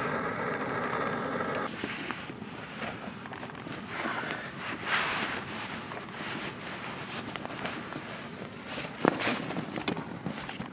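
A steady hum stops abruptly under two seconds in. Then come rustling of clothing and tent fabric with scattered crunches and clicks of snow, over a wind-like hiss, with one sharper knock near the end.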